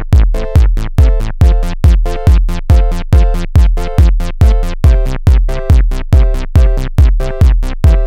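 Electronic background music: a steady drum-machine beat, about three beats a second, under a held synth chord that changes about five seconds in.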